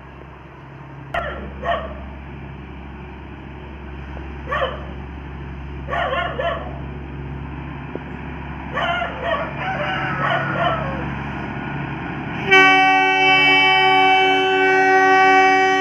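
Darjeeling Himalayan Railway toy train running with a steady low rumble. A dog barks a few times over the first ten seconds. Near the end the train sounds its horn in one long, loud, steady blast.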